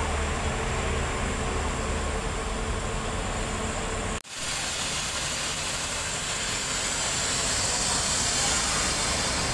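Parked Mercedes-Benz intercity coach running at idle: a steady low diesel hum under a constant hiss. The sound drops out for an instant about four seconds in, then goes on as a brighter, steady hiss.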